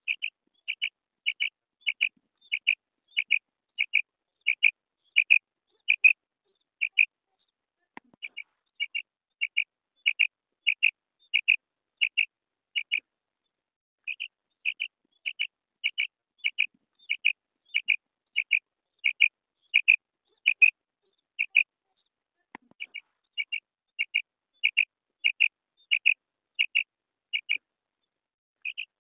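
Female common quail calling: short, high notes repeated about two a second, in runs of several seconds broken by brief pauses.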